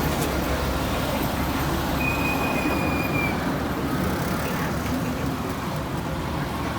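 Heavy diesel engine running steadily with a low rumble. About two seconds in, a thin high steady tone, like a squeal, sounds for just over a second.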